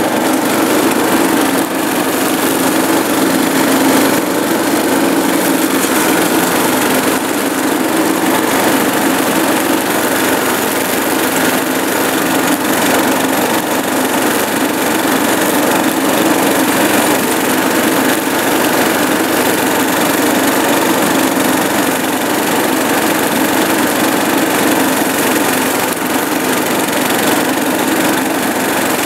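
Murray riding lawn mower's engine running steadily and evenly as the mower drives across the lawn.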